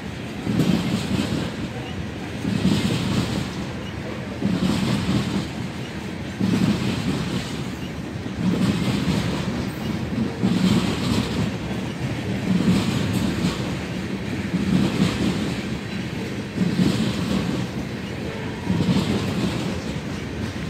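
A freight train of tank cars rolling past, its wheels clacking over the rails in a regular rhythm that swells about every two seconds over a steady rumble.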